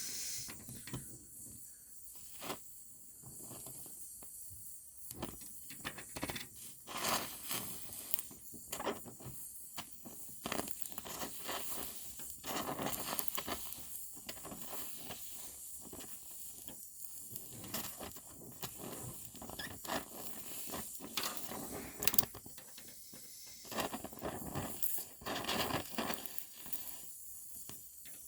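Gas welding torch hissing steadily while welding in a thin steel body patch, with irregular crackles and pops from the weld.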